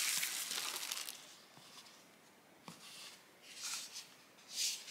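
Tissue paper rustling softly as a wrapped item is unwrapped. The rustle fades out over the first second, then comes back as two short crinkles in the second half.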